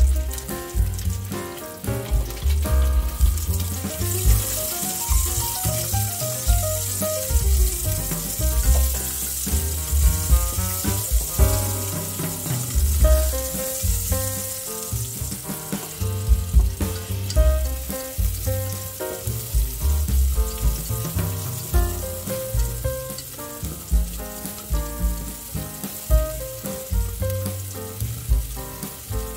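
Onion, garlic and ginger sizzling in hot oil in a stainless steel pot, stirred now and then with a spatula, over background music with a steady bass beat.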